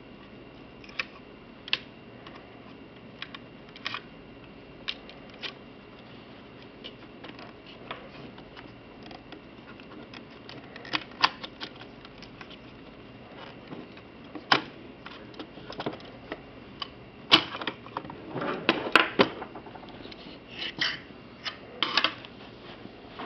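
Scattered sharp plastic clicks and taps as an Aqua Medic Reefdoser's housing and circuit board are handled, with wire connectors being pulled off the board and the display board being lifted out. The clicks come one at a time at first, then crowd together with some rustling near the end.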